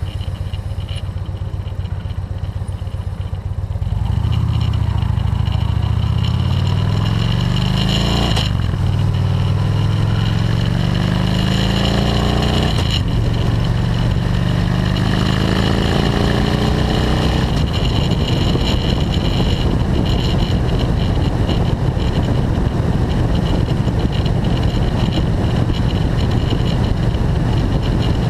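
Touring motorcycle engine accelerating through the gears. The revs climb from about four seconds in and drop at upshifts near 8 and 13 seconds, then settle into a steady cruise after about 17 seconds, with wind rushing over the microphone.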